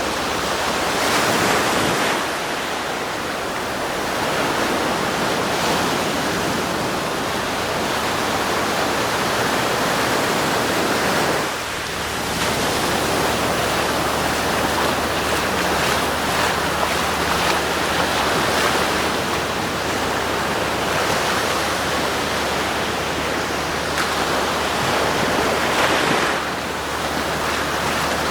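Surf washing onto a sandy beach: a steady rushing of waves that swells and eases every few seconds. A faint low hum joins partway through.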